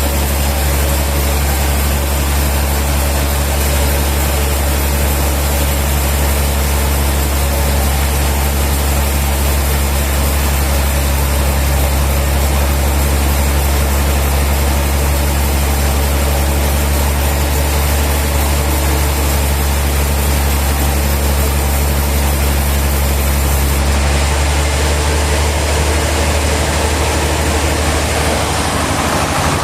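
Sawmill machinery running steadily: a loud continuous drone with a deep hum. About 24 seconds in, the sound changes abruptly and its high hiss drops away.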